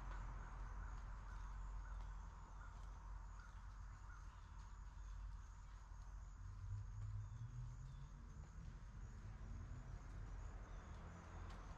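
Quiet rural outdoor ambience: a steady low distant rumble, with faint insect chirring and a few scattered bird chirps. A car's tyre noise fades away over the first couple of seconds.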